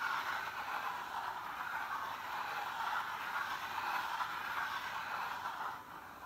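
Ouija board planchette sliding across the board under people's fingertips, a steady scraping that dips briefly near the end.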